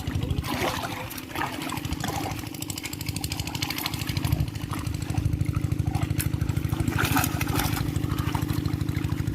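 An engine running steadily at idle with a fast, even low pulse, with a few short noises over it near the start and again near the end.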